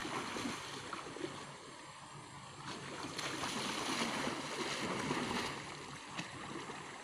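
River water sloshing and splashing as a person wades through it waist-deep, swelling about three seconds in and easing off near the end.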